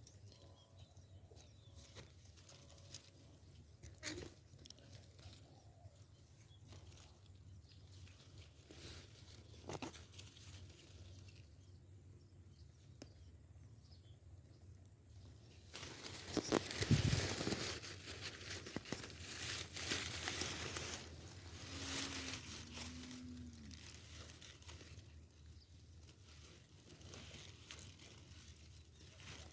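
Dry grass and vegetation rustling and crackling as a person moves through it, faint at first, then louder and busier from about halfway through.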